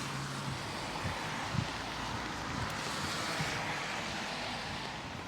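Heavy rain falling steadily, with the hiss of tyres on the wet road swelling and fading in the middle as a car goes past.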